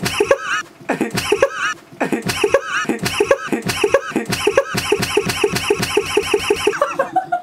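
A young man laughing loudly and hard: a long run of rapid, high-pitched 'ha' pulses, about four a second, with a brief catch of breath about two seconds in.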